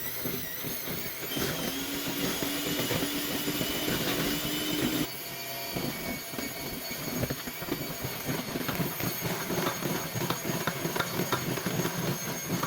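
Electric mixer running, mixing in the butter, with a steady motor whine and the beaters clicking against the bowl. The motor sound changes abruptly about five seconds in.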